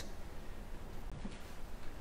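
Faint, steady room tone of a hall with a low rumble, and no distinct sound standing out.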